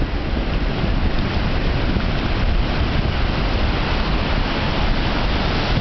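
Ocean surf washing in over a shallow sandy beach, mixed with wind buffeting the microphone: a steady rush of noise.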